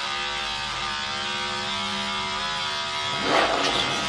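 Electric hair clippers buzzing steadily at the head during a haircut. The sound turns louder and rougher for about a second near the end.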